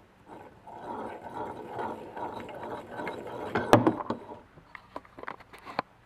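Ratcheting, grating metal-on-metal rattle from a Honda Monkey-type (Z50) engine's crankshaft and bearings being worked by hand for about four seconds, loudest near the end, then a few sharp clicks. The roughness is the sign of a worn or seized crank bearing with play in the crankshaft.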